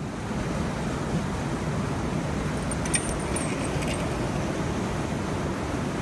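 Steady rush of river water through the wooden needles of a needle dam, with a few light metallic clinks about three seconds in.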